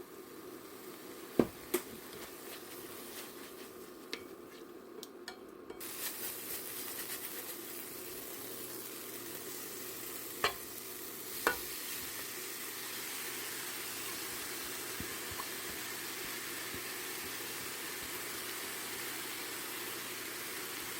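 Food sizzling in a frying pan, a steady hiss that starts about six seconds in and carries on. A few sharp knocks sound, two near the start and two more about halfway through.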